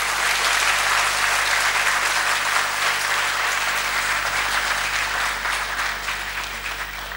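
Audience applauding in a large lecture hall at the close of a speech, the clapping swelling at once and then slowly dying away.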